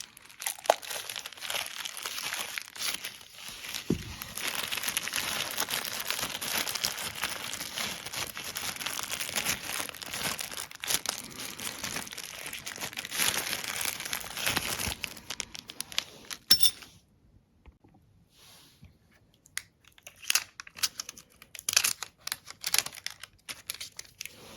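Packaging being handled as the Govee floor lamp is unboxed: steady crinkling and tearing of wrapping. About two-thirds of the way through it drops away, leaving scattered short rustles and clicks.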